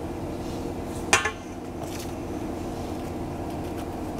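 A single sharp metallic clink of kitchenware about a second in, from the butter knife, stainless steel bowl and metal baking tray being handled, with faint scraping and a steady low hum underneath.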